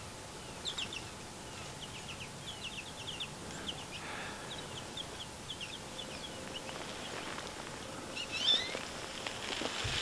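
Small bird chirping: a long run of short, quick, high notes, with a louder burst of calls about eight and a half seconds in.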